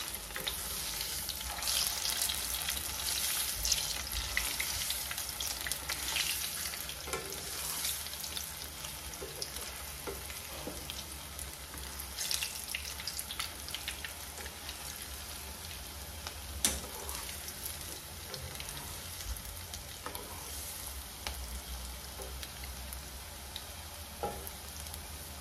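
Spinach and gram-flour kofta balls deep-frying in hot oil in a kadhai: a steady sizzle full of small crackles, with the scrape and ticks of a wooden spatula turning them. A single sharp knock about two-thirds of the way through.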